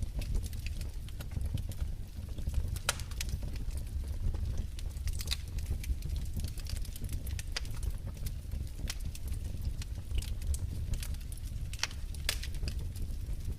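Wood fire in a fireplace crackling: irregular sharp pops and snaps over a steady low rumble of the flames.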